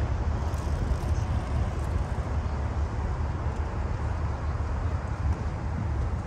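City street ambience: a steady low rumble of traffic, with wind gusting on the microphone.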